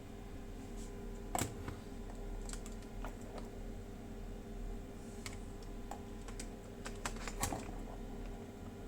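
Scattered light clicks and taps of small hard parts being handled and fitted together, irregular, with a sharper knock about a second and a half in and another near the end, over a faint steady hum.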